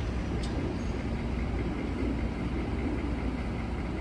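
Steady low rumble of street traffic and idling vehicles, with a brief click about half a second in.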